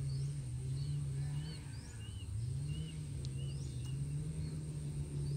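A steady low engine drone that dips and then rises in pitch a couple of seconds in, with small birds chirping repeatedly over it.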